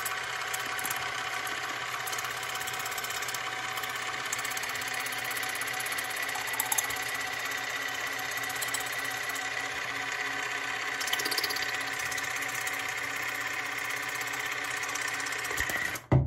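Handheld water flosser's pump motor buzzing steadily while its tip sprays water inside the mouth. It cuts off suddenly near the end when the unit is switched off.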